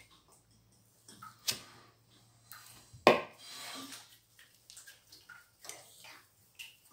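Kitchen handling sounds as cookie dough balls are set out on a parchment-lined baking tray: scattered light clicks and knocks, a sharper knock about one and a half seconds in, and the loudest knock about three seconds in followed by a short rustle.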